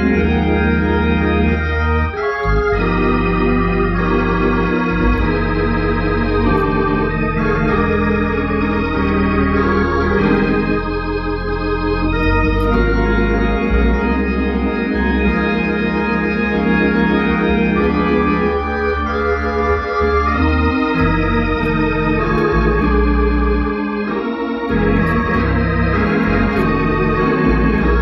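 Hammond organ playing a hymn in full sustained chords over a low bass line, the chords changing every second or so; the bass drops out briefly about two seconds in and again near the end.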